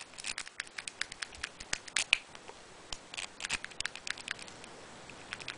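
Lock pick and tension wrench working inside a padlock: many small, irregular metallic clicks and ticks as the pins are worked and set.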